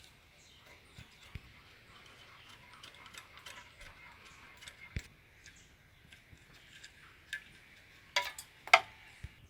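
Scattered light clicks and taps of hand tools on metal while an old compressor is stripped of its parts, with two louder clinks about 8 and 9 seconds in.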